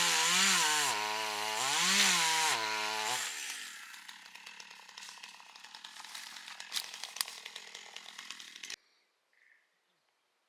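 Two-stroke chainsaw running under load, its engine pitch rising and falling every second or so. It stops about three seconds in, leaving quieter crackling with a few sharp snaps. Near the end it cuts off suddenly to near silence with a couple of faint chirps.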